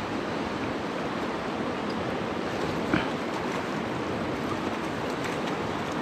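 Shallow mountain river running over stones: a steady rush of water, with a single short tap about three seconds in.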